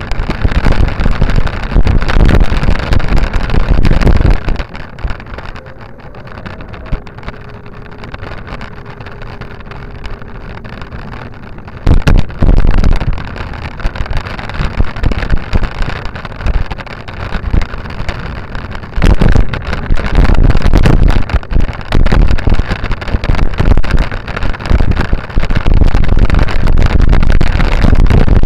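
Loud, gusty wind buffeting on the microphone of a camera moving along a path. It eases to a quieter, steadier rumble from about five to twelve seconds in, then picks up again.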